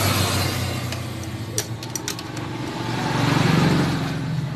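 A motor vehicle engine running, its level easing and then swelling again about three seconds in as it is revved. Over it come a few sharp metallic clicks from hand tools working on a motorcycle's valve adjusters.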